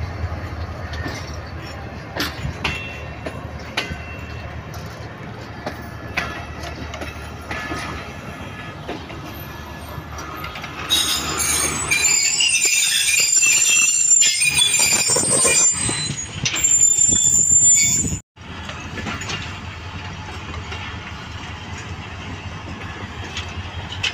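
Passenger coaches of a departing diesel-hauled train rolling past on the rails, with clicks over the rail joints. Loud, high-pitched wheel squeal comes in about 11 seconds in as the coaches pass close by and lasts some seven seconds. The sound cuts out for an instant, then goes on as quieter rolling as the train pulls away.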